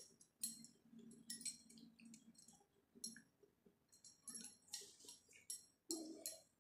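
Faint, irregular light clinks of metal bangles jingling on the makeup artist's wrist as she dabs makeup onto a face with a sponge, a few at a time over the whole stretch.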